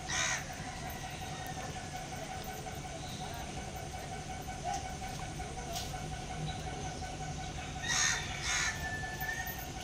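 Harsh, caw-like bird calls: one right at the start and two more in quick succession about eight seconds in, over a faint steady hum.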